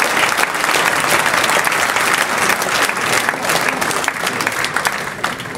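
A large indoor audience applauding: a dense wash of many hand claps that thins out near the end.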